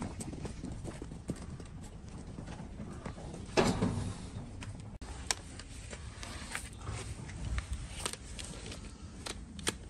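Donkey hooves stepping on dry dirt, with scattered sharp clicks and one short loud noise about three and a half seconds in. Near the end come a few sharp snaps as long-handled hoof nippers cut into the overgrown hoof.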